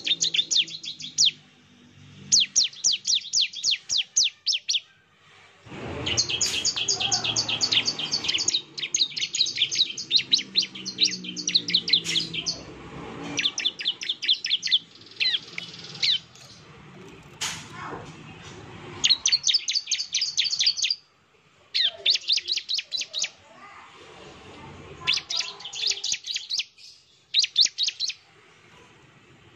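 Bar-winged prinia (ciblek) singing its fast 'nembak' song: rapid, rattling trains of high repeated notes in bursts of one to two seconds, with short pauses between them. A low rumble sits underneath for several seconds in the first half.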